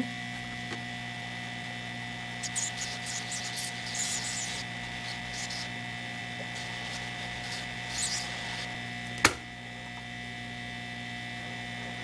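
Handheld heat gun running steadily, a constant hum with a thin high tone, as it heats the solder joints of a laptop DC power jack to melt them. A single sharp click sounds about nine seconds in.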